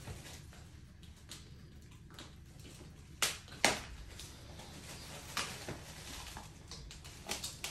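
Unpacking a boxed dog-bowl stand: quiet handling of cardboard and plastic wrap, with a few sharp clicks and knocks, the loudest two a little past three seconds in.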